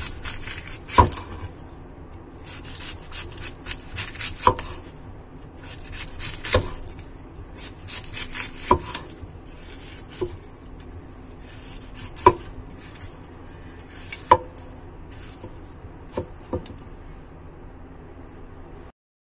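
A Chinese cleaver slicing a pear on a wooden chopping board: crisp cutting through the fruit's flesh, with a sharp knock of the blade against the board about every two seconds.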